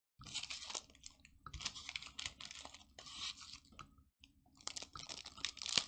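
Foil Pokémon booster-pack wrappers crinkling as they are handled, in several spells of about a second each.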